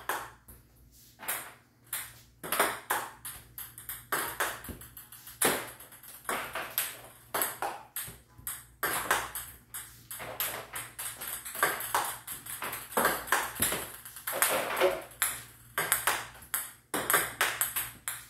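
Table tennis balls struck with a paddle in backhand topspin strokes and bouncing away: a quick, irregular run of sharp plastic clicks, several a second.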